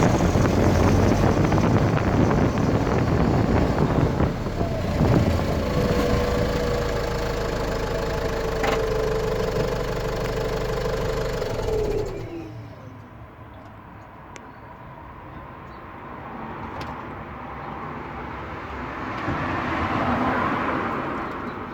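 Land Rover Freelander 2 on the move, with a steady whine from the driveline over the road noise, sagging slightly in pitch and then dropping away as the car slows about twelve seconds in. It is the grinding noise that persists even though the rear differential has been replaced.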